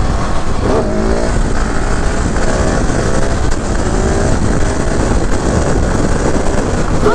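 KTM 690 SMC R supermoto's single-cylinder engine heard onboard while riding, its revs rising and falling, with a climb in revs about a second in.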